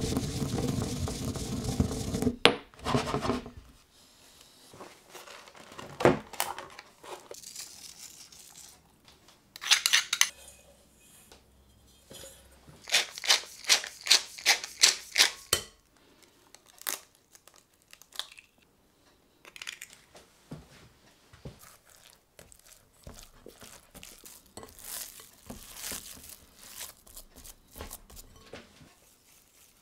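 A stone pestle grinding roasted whole spice seeds in a stone mortar, scraping and crunching loudly at first. About halfway through, a pepper mill is twisted over the bowl in a quick run of evenly spaced clicks. Later, hands squish and knead raw pork mince in a glass bowl, more faintly.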